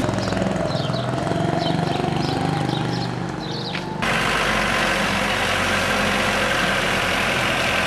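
Heavy truck engine running steadily, then, after an abrupt cut about four seconds in, a loud steady rushing hiss over the engine hum.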